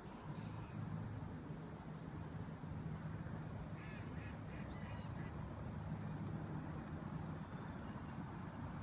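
Waterfowl calling by a lake: a short run of quacking calls about four seconds in, with small high chirps scattered through. Under it runs a steady low background rumble.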